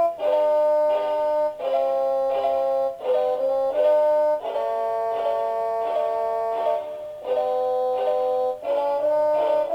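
Seiko NR435P quartz alarm clock playing one of its built-in electronic melody alarms. The tune is in several voices, with held notes in chords that change every half second to a second or so and brief breaks between phrases.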